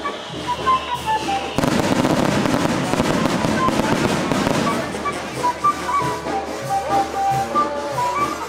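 A string of firecrackers goes off about one and a half seconds in, a dense crackle of many quick bangs lasting about three seconds and then thinning out, over band music that plays on throughout.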